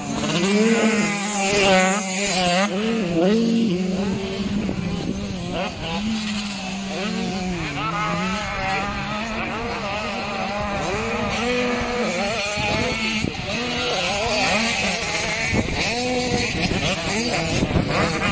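Several two-stroke 85 cc motocross bikes racing, their engines revving up and down over one another, with a steady low hum underneath.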